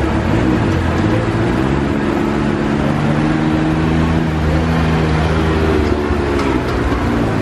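Can-Am Maverick X3 side-by-side's turbocharged three-cylinder engine idling, its pitch drifting gently up and down with light blips of the throttle.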